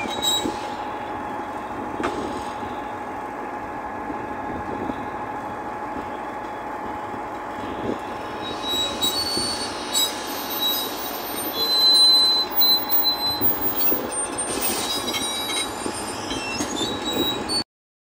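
Caterpillar crawler bulldozer's steel track chain working over the drive sprocket and idler: steady metal-on-metal running with a constant whine and scattered clanks. A louder high squeal comes about twelve seconds in.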